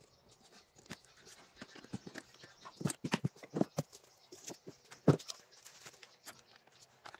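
Irregular knocks and clicks as a Huina 1594 RC excavator is handled and set down on dirt, with a cluster of knocks about three seconds in and the loudest thump about five seconds in.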